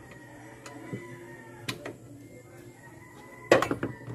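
Metal tools and parts clinking against each other a few times, with a loud quick cluster of clinks about three and a half seconds in, over faint background music.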